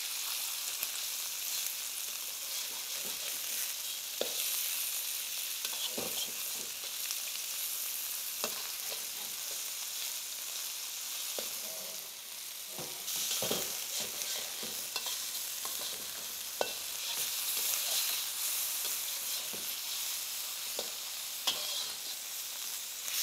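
Sliced chicken sizzling as it fries in hot oil in a wok, with occasional knocks and scrapes of a utensil stirring it.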